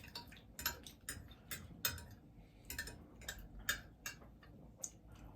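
Close-miked eating sounds: chewing and lip smacks, irregular sharp wet clicks about two a second.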